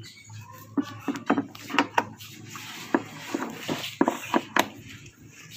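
Irregular clicks and knocks, with some rustling, as speaker cables are handled and their connectors plugged into the speaker cabinets.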